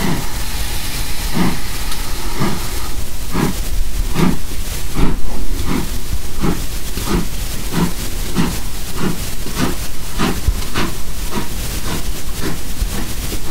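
Steam locomotive chuffing over a steady hiss, its exhaust beats speeding up from about one a second to about two a second as it gathers pace.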